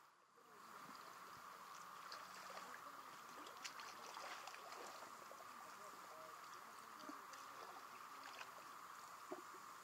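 Faint lapping of small wavelets against shoreline rocks in shallow water, with scattered little splashes and trickles.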